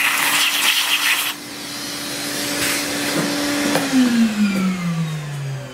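Cordless rotary tool grinding out a servo cutout in a model glider fuselage for about a second, then running free with a steady whine. About four seconds in it is switched off and winds down, its pitch falling.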